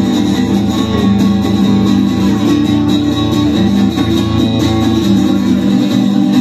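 Live rock band playing an instrumental passage between vocal lines, with guitar to the fore.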